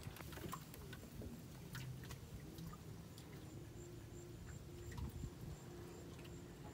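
Faint, scattered small clicks and taps over a low background rumble.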